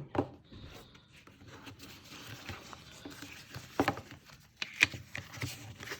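Paper receipts and packaging being handled: soft rustling with a few sharp taps, one just after the start and two about four and five seconds in.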